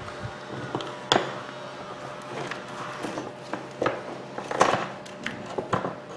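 Hands handling a Makita hammer drill's plastic rear housing and power cord during reassembly: scattered clicks, knocks and rustling, with a sharp click about a second in and the loudest rustle a little past the middle.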